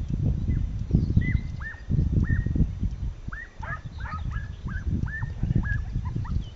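Scent hound (gonič) baying on a trail, a series of short yelps that each drop sharply in pitch, coming thickest around the middle. Wind rumbles on the microphone underneath, louder than the calls.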